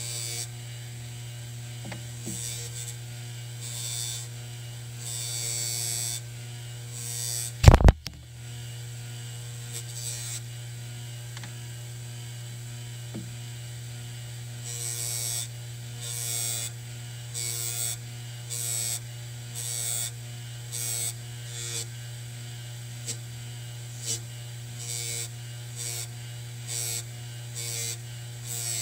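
Electric bench buffer running with a steady motor hum while a small metal piece is pressed against the spinning cloth buffing wheel in short strokes, each stroke giving a brief hiss, about one a second in the second half. A single loud knock about eight seconds in.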